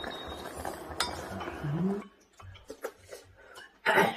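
Wooden spoon stirring and scraping nurungji (scorched rice softened in water) in a small black cast-iron gamasot pot, with a click about a second in. After about two seconds it gives way to quieter small clinks of spoons and chopsticks on bowls, and one brief louder sound near the end.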